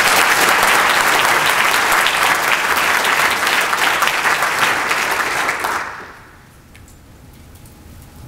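Audience applauding, dying away about six seconds in to quiet room tone.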